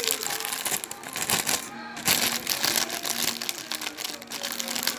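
Thin clear plastic zip-lock bags crinkling and rustling as they are handled, giving a dense run of small irregular crackles.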